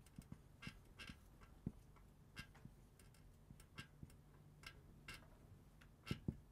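Marker pen writing on a whiteboard: faint, irregular taps and short squeaks as the letters of a formula are drawn.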